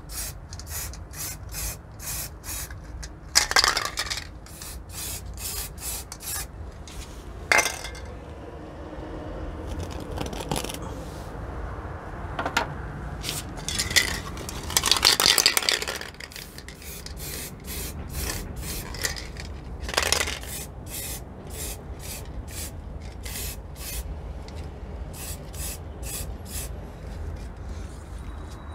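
Aerosol spray paint can being shaken, its mixing ball rattling in quick, even clicks, with a few short hisses of spray.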